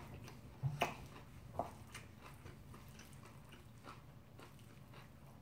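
Quiet eating sounds: soft chewing of bibimbap and a few light clicks of a spoon in a stainless steel mixing bowl, the clearest within the first two seconds.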